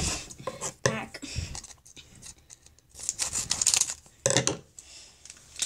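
Foil trading-card pack crinkling and rustling as it is handled, in a few short bursts.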